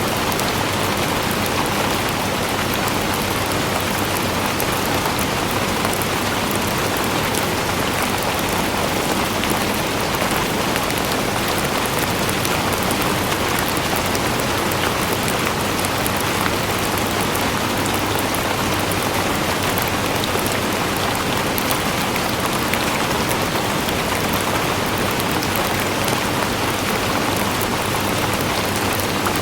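Steady rain falling, a dense even patter of drops on a surface with no let-up.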